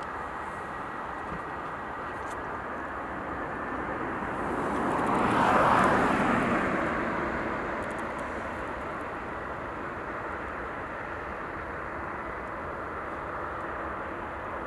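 Jet airliner noise, a Boeing 737-800, over a steady rushing background, swelling to a peak about six seconds in and then fading.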